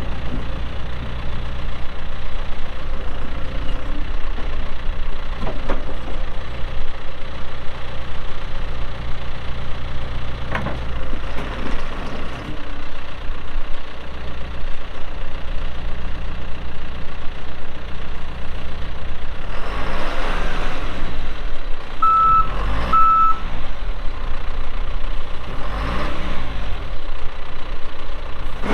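John Deere 410L backhoe's diesel engine running under load, its pitch sagging and recovering a few times as the machine works. About two thirds of the way through, the reverse alarm beeps twice.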